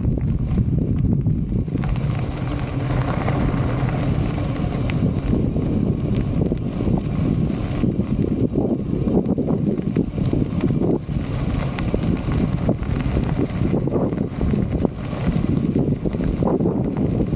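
Wind buffeting the microphone of a moving bicycle, a steady low rumble that swells and dips, with tyres rolling on a gravel path underneath.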